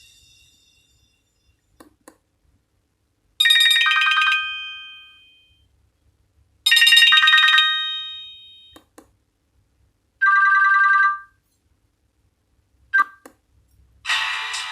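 Nokia X1-01 phone speaker playing short electronic chime tones one at a time: three brief chimes a few seconds apart, the first two ringing out and fading, the third cut off abruptly, with soft clicks in the pauses. Near the end another ringtone melody begins.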